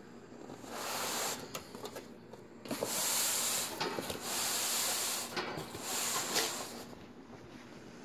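Rustling, rubbing handling noise in several bursts of about a second each, with a few faint ticks between them.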